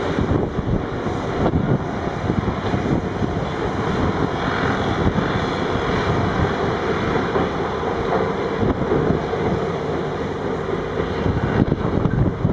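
Diesel engines of large wheel loaders working a quarry floor, a steady heavy rumble, with wind buffeting the microphone.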